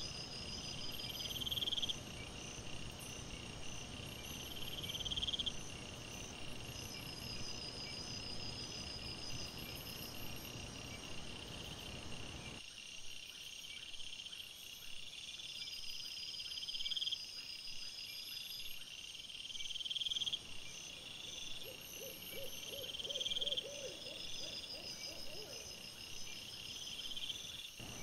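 Crickets chirping in short high trills, one every two seconds or so, over a steady hiss.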